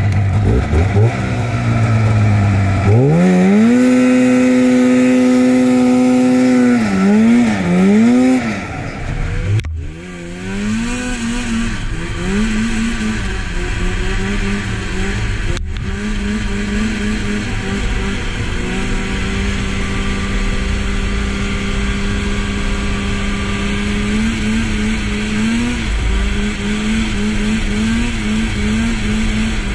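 2000 Polaris Indy 500 snowmobile's two-stroke engine pulling away. It revs up sharply about three seconds in, holds high, eases off and blips twice, then after a brief drop runs at a steady cruising speed with small rises and falls in pitch.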